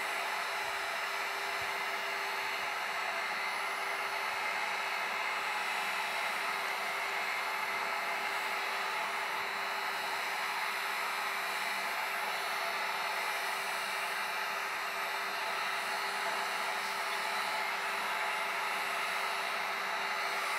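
Electric heat gun running steadily, a constant rush of blown air with a steady motor hum, heat-shrinking a plastic wrap onto a battery cell.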